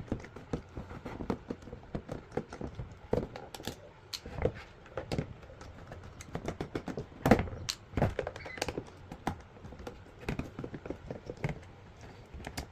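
Scattered small clicks and knocks from hands taking apart a handheld purge monitor and handling its screws and case parts, with a few louder knocks.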